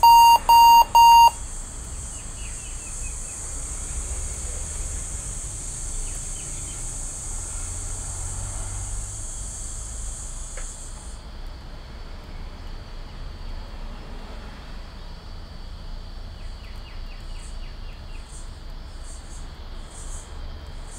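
Loud, short electronic beeps at one steady pitch, about two a second, stopping a little over a second in. Then a steady low hiss with a few faint clicks.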